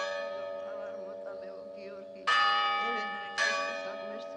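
A bell ringing out from a stroke just before, then struck again about two seconds in and once more a second later, each stroke slowly dying away.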